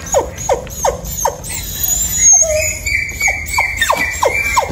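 Puppies squealing and whining over and over in short falling cries, two or three a second, with some higher drawn-out squeals: the distress calls of puppies separated from their mother.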